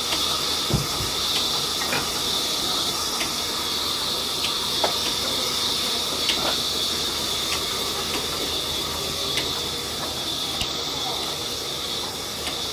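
Large band sawmill running with a steady hissing whir, with scattered short knocks of wood and one heavier thump just under a second in.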